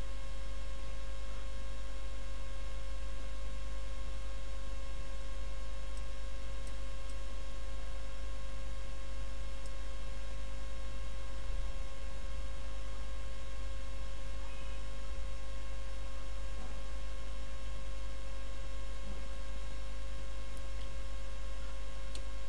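Steady electrical mains hum in the recording: a strong low hum with thin, unchanging higher whining tones above it, and nothing else.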